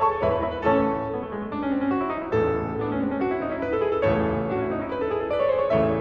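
Background music: piano playing a steady run of notes.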